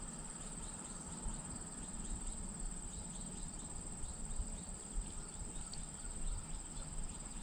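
Insects trilling: a steady, high-pitched, pulsing chorus with a low rumble underneath.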